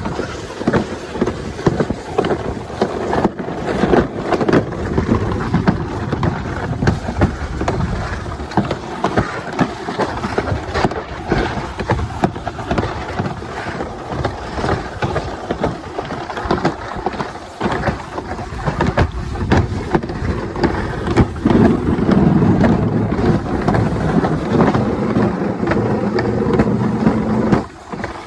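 Alpine slide sled running down its trough track, with a continuous rough rumble and rattle of the sled on the track and wind on the microphone. A steady low hum joins in about three-quarters of the way through.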